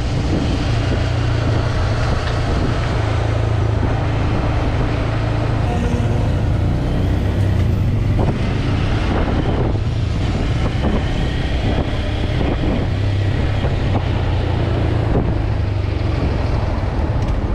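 Small motorcycle's engine running steadily while riding through city traffic, heard from the rider's seat, with a low hum that eases off briefly about two-thirds of the way through.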